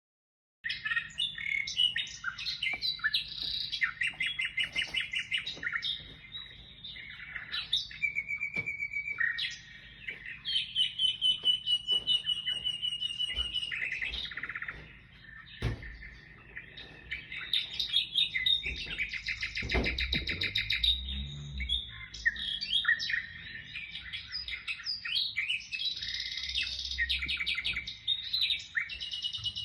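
Small birds chirping and trilling, many quick calls and fast repeated trills overlapping, with a low hum underneath and a couple of dull knocks partway through.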